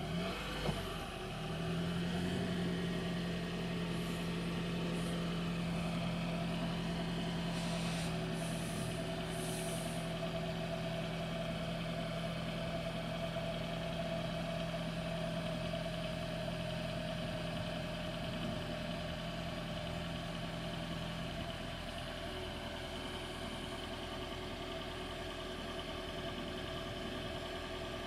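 A diesel engine idling steadily, a low, even hum whose deepest tone drops out about three-quarters of the way through.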